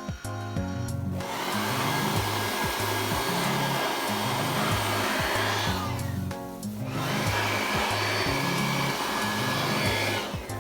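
A loud, steady rushing hiss in two long stretches, breaking off for about a second near the middle, over background music with a steady bass line.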